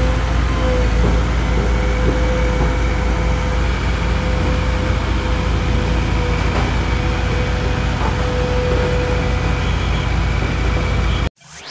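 Diesel engine of a Hamm HC-series single-drum roller running steadily as the machine drives up loading ramps, a low hum with a steady high whine over it; the sound cuts off abruptly near the end.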